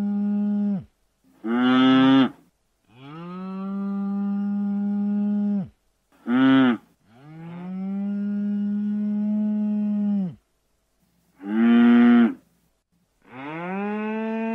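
A large hoofed animal lowing in a repeating series: long, deep calls of about three seconds that swell in and hold one steady pitch, alternating with short, louder calls, with brief silences between.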